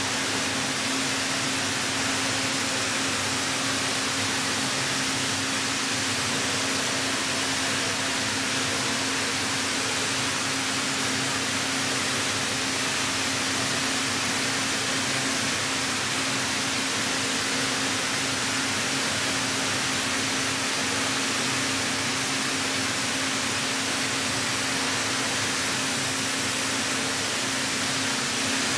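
Heller CNC four-roll hydraulic plate bending roll running as it rolls a steel plate into a cylinder: a steady hum with an even hiss over it, unchanging throughout.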